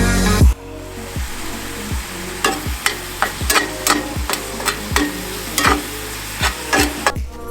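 Meat sizzling as it fries in a pan and is stirred, over background music with a steady beat. The music is loud for the first half second, then drops under the sizzling.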